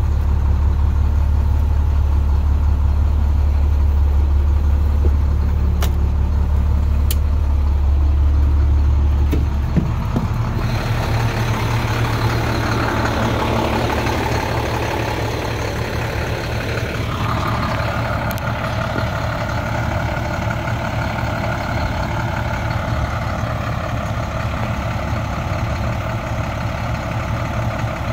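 International DT466E diesel in an IC CE school bus running steadily at idle. For the first ten seconds it is heard as a deep drone inside the cab, with a few sharp clicks of the dash rocker switches. It then changes to a lighter, more open engine sound heard from outside the bus.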